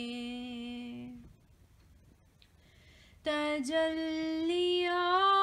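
A single voice singing a naat with no instruments heard. A long held note on the end of a line fades out about a second in. After a short near-silent pause, the next line opens on another long sustained note that steps up in pitch.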